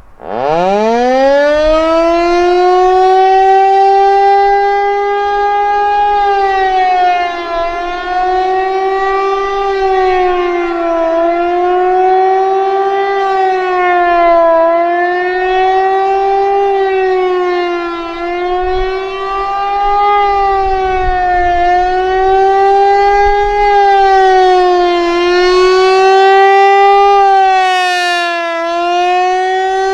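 Federal Signal Equinox tornado siren winding up fast from a low growl to full pitch, then doing a fast wail: the tone rises and falls evenly about every three and a half seconds. It is running on batteries that are not doing well but still sound loud.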